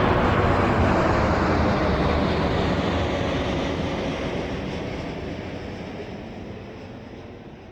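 Airplane flying past, its steady engine noise fading away evenly.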